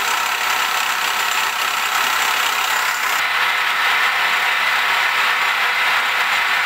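Milling machine spindle running at 1800 RPM with a 6 mm end mill cutting a keyway into a 4340 chromoly steel gear blank: a loud, steady mechanical running noise with a steady whine.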